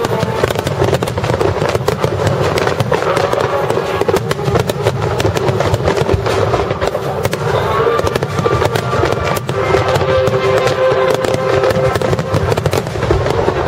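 Rapid barrage of aerial fireworks shells bursting, a dense run of sharp cracks and booms over a continuous low rumble. Steady music-like tones sound underneath, most clearly past the middle.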